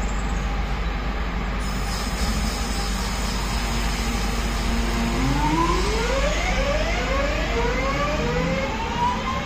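Class 323 electric multiple unit pulling away: a steady hum, then about halfway through a rising whine from the traction motors that climbs in a series of steps as the train accelerates.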